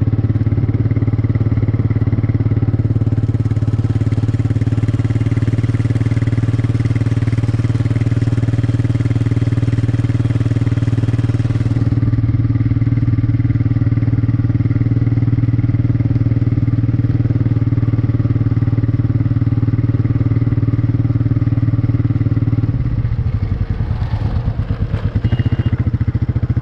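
Royal Enfield Meteor 350's single-cylinder engine running at a steady speed, its note changing abruptly to a rougher, pulsing sound near the end.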